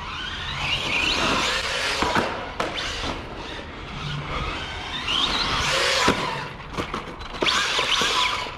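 Electric RC monster truck, an Arrma Big Rock, racing over a dirt jump track. Its motor whines up in pitch as it accelerates, about three times, over tyre and gravel noise, with hard knocks of landings about two and six seconds in.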